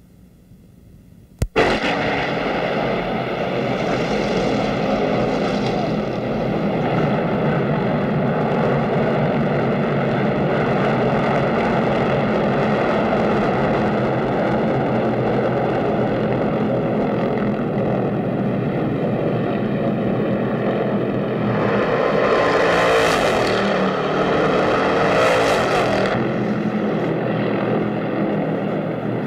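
Racing stock cars' V8 engines running at full speed on the track. The sound cuts in suddenly with a click about a second and a half in, then holds steady and loud, swelling twice with shifting pitch near the end as cars go by.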